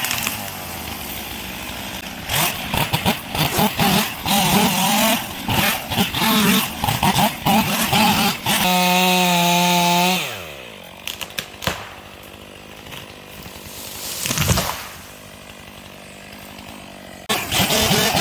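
Chainsaw cutting pine, its engine note dipping and rising under load. About nine seconds in it runs free at a steady high pitch, then winds down to a low idle a second later. Near the end it revs up loud again.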